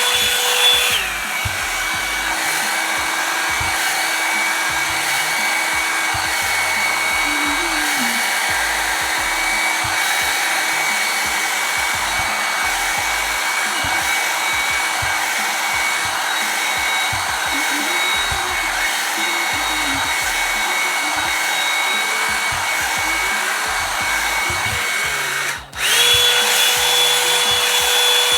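Revlon One-Step hot-air dryer brush running with a steady motor whine and rush of air. About a second in, the whine steps down to a lower pitch (a lower speed setting). Near the end, the sound cuts out for a moment and comes back at the higher speed.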